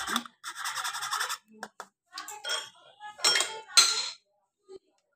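Small steel strainer clinking and scraping against glass bowls in several short bursts, the loudest clatter near the end as it is handled over the strained egg custard mixture.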